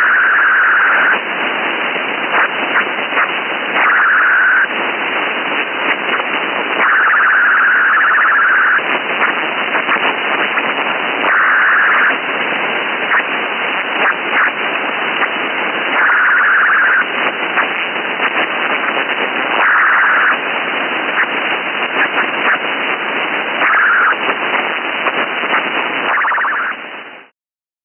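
Sci-fi radio static: a steady narrow-band hiss with crackles, swelling every few seconds into louder, brighter bursts of about a second or two, then cutting off abruptly near the end.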